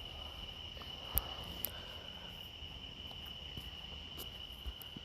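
An insect trilling steadily at one high pitch, with a few faint clicks and taps.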